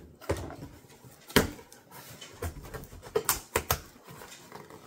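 Cardboard shipping box being cut and pulled open: irregular scrapes, rips and knocks of cardboard and packing tape, with the sharpest knocks about a second and a half in and again near three and a half seconds.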